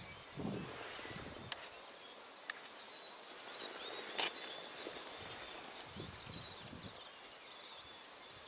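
Small birds singing: rapid runs of high chirps and short trills, with a single sharp click about four seconds in and a few low rumbles.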